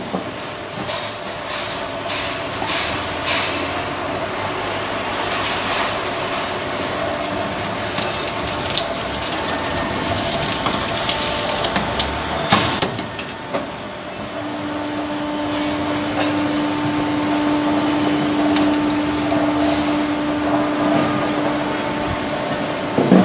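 Stator recycling press running steadily, with knocks and clanks as the electric-motor stator is handled in it. A steady tone sounds for several seconds in the second half while the ram works on the stator.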